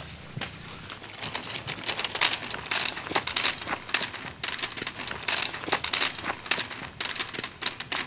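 Hikers' footsteps crunching on a gravel forest road, an uneven run of crunches about two to three a second, louder from about two seconds in.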